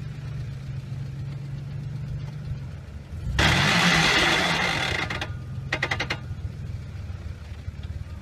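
4x4 SUV engine running low and steady as the truck sits on a steep rock ledge. About three and a half seconds in it revs up and down under a loud rushing noise for about a second and a half, followed by a few sharp knocks.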